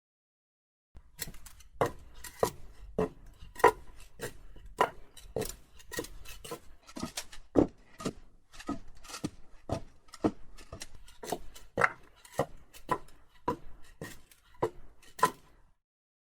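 Footsteps from a sound-effects recording: a long run of uneven steps with scuffs, about two to three a second. They start about a second in and stop shortly before the end.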